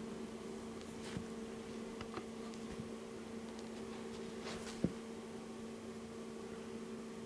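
Steady faint electrical hum in a quiet room, with a few soft clicks and a short rustle about four and a half seconds in.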